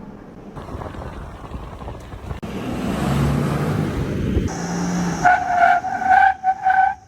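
Toyota Land Cruiser driving: engine and road noise growing louder, with a pulsing high-pitched tone over the last two seconds.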